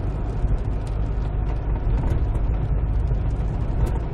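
Cabin noise of a 2002 Kia Sorento under way: a steady low engine and road rumble.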